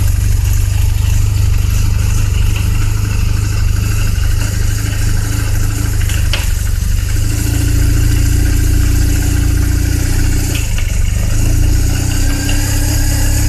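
Car driving in fifth gear, a steady low rumble of engine and drivetrain. About halfway through, a steady droning tone comes in, drops out for about a second, then returns: the weird transmission noise heard in fifth gear.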